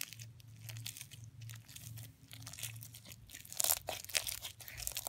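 Sticky slime full of foam beads being squished and pulled apart by hand, crackling and popping in a run of small irregular clicks, with a couple of louder crackles about three and a half seconds in.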